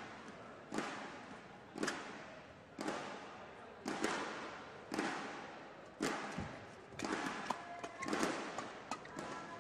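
Badminton rally: racquets striking the shuttlecock about once a second, each sharp hit ringing on in the large hall. Short squeaks are heard near the end.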